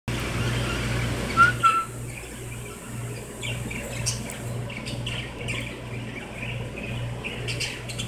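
Cockatiel calling: two short, loud whistled notes about a second and a half in, then a run of quick high chirps. A low hum that pulses about twice a second runs underneath.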